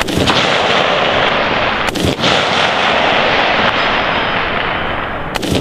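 Rifle shots fired one at a time: three sharp cracks, near the start, about two seconds in and near the end, over a steady loud noise.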